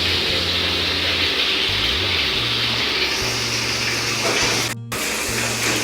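Water running steadily from a tap or hose, as when rinsing butchered chicken, with a bass line of background music underneath. The sound breaks off for an instant about five seconds in.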